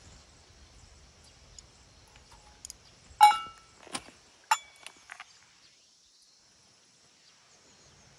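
A handful of sharp clinks and knocks of hard camp cookware or tableware, loudest about three seconds in. Two of them ring briefly. Under them runs a steady high insect chirr.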